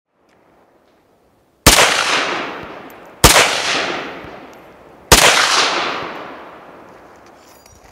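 A rifle firing three single shots, about one and a half to two seconds apart, each crack followed by a long echo that dies away over a couple of seconds.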